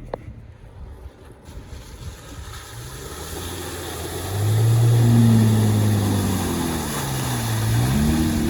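Jeep Wrangler engine pulling away from a lull, its note rising, then holding steady at its loudest about halfway through. It dips and rises again near the end.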